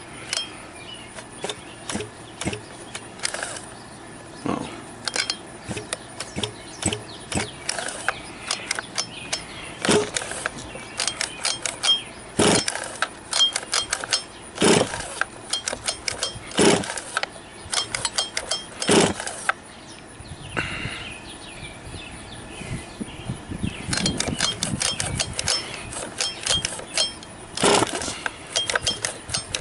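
Repeated pulls on the recoil pull-starter of a Losi 5ive B's 34cc two-stroke engine, one every one to two seconds, with quick runs of ticking. The engine turns over but never fires, a no-start the owner traced to a kill switch connector not making good contact.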